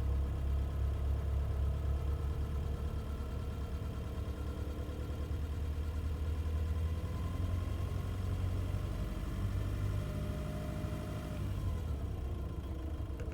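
Nissan Navara engine running at low revs with a steady drone, its tones shifting a little near the end. The owner calls it an abnormal engine noise, noticeable between 750 and 2000 rpm.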